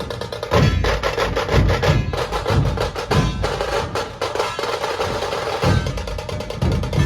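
Dhol-tasha ensemble playing: tashas keep up a fast, dense roll of sharp strikes over heavy, booming dhol beats, which come in about half a second in.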